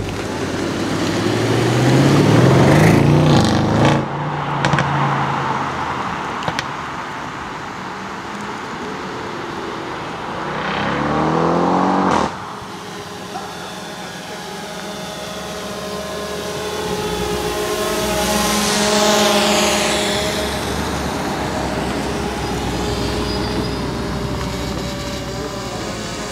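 Audi RS7's twin-turbo V8 revving up hard under acceleration twice, with a couple of sharp exhaust pops after the first run, then the car driving past with the engine note swelling and dropping in pitch, and running steadily at low speed near the end.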